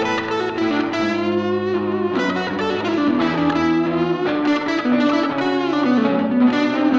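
Electric guitars playing a slow blues in the key of B: a slide guitar lead with gliding notes and wide vibrato over a second guitar.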